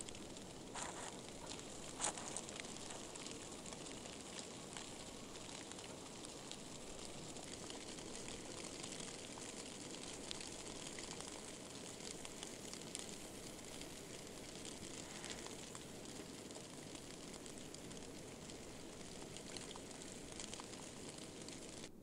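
Faint outdoor ambience in falling snow: a steady hiss with scattered small ticks, and two sharper clicks about one and two seconds in.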